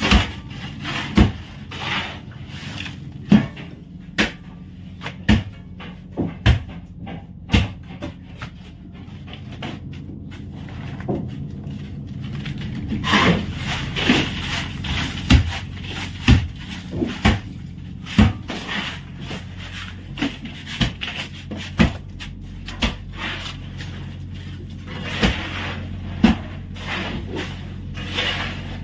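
Shovels scraping through crushed ice and knocking against the boards and walls of a fishing boat's fish hold. Sharp knocks come every second or so, over a steady low hum.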